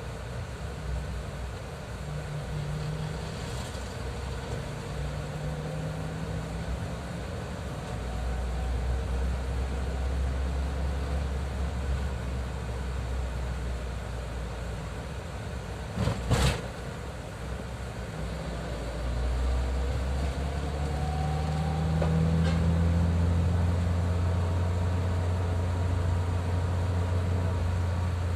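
Steady low engine and road rumble of a vehicle, growing louder about a third of the way in and again near two-thirds, with faint gliding engine tones and one sharp knock about sixteen seconds in.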